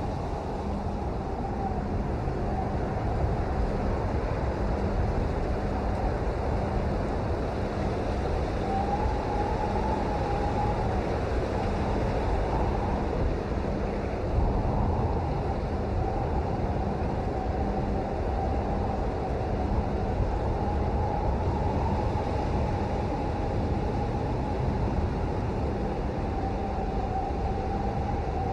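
Steady, dense rainfall as continuous white noise, mostly deep rumble, with a faint wavering tone running through it.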